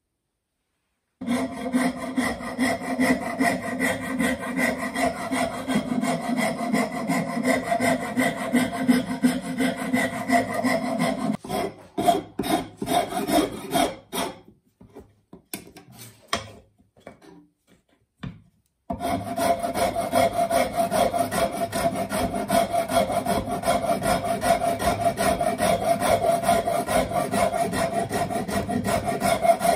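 Shinto rasp cutting into the wooden handle of a hatchet with fast back-and-forth strokes, taking the handle down into rough flat planes. A long steady run of rasping stops just over a third of the way in. Broken strokes with short pauses follow, then a steady run again from about two-thirds through.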